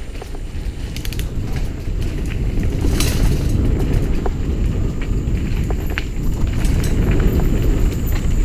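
Mountain bike rolling over a rough dirt trail, its chain and parts rattling and clicking, under a steady low rumble of wind and trail noise on the helmet-mounted camera; it grows louder a couple of seconds in.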